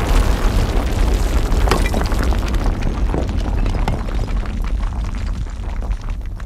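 Tail of a movie-style explosion sound effect: a heavy low rumble with scattered crackles, slowly dying away and fading near the end.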